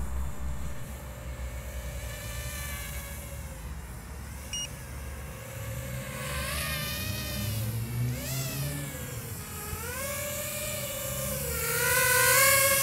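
Small quadcopter's motors and propellers whining, the pitch swooping up and down with throttle and growing louder near the end as it flies close. A short beep about four and a half seconds in from the FrSky radio transmitter, its warning that the receiver signal strength is low.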